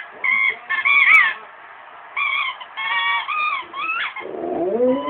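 Rottweiler howling: a string of short, high, wavering howls, then near the end a longer howl that starts low and rises in pitch.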